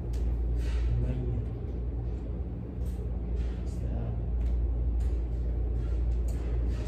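Indistinct distant talk over a steady low hum of room noise, with a few short rustles.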